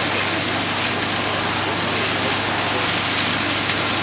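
Firefighting hoses spraying water onto a burning house: a steady rushing hiss, with a steady low engine hum underneath.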